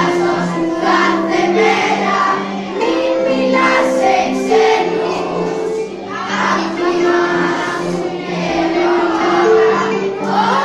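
A children's choir singing together over an instrumental backing.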